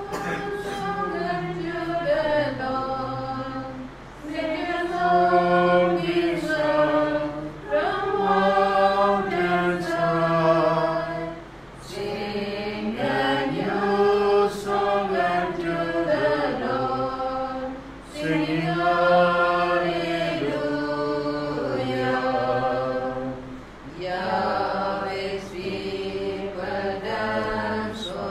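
A choir singing a hymn in long phrases, with short pauses roughly every six seconds: the entrance hymn that opens the Mass.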